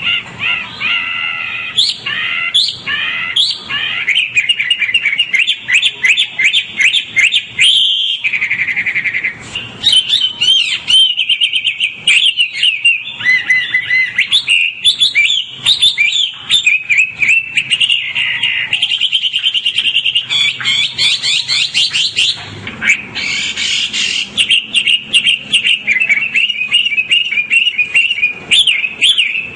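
White-rumped shama singing continuously: a rapid, unbroken stream of varied whistles, rising and falling slurs and fast trills.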